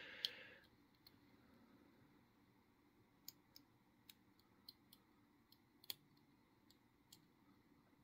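Faint, scattered small metal clicks from handling an opened padlock and lock-picking tools, with one sharper click just after the start.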